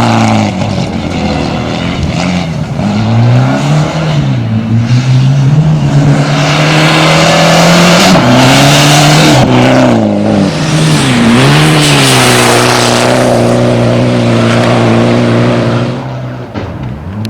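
Rally prototype car's engine at full effort, its pitch climbing and dropping over and over as the driver accelerates, lifts and changes gear. Near the end the engine drops lower and the sound gets quieter.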